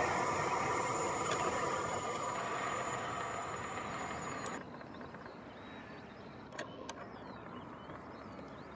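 A passing train dying away into the distance. Its rumble, with a steady high hum, fades and then drops away suddenly about halfway through, leaving faint background sound with two small clicks.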